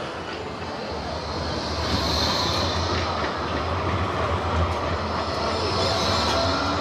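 Bombardier Flexity 2 tram passing close by: a low rumble of steel wheels on rail that builds from about a second in, with a high hiss over it and a faint rising whine near the end.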